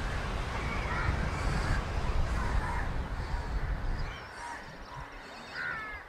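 Wind buffeting the microphone as a fluctuating low rumble that drops away suddenly about four seconds in, with a few short bird calls in the background, one clearer call near the end.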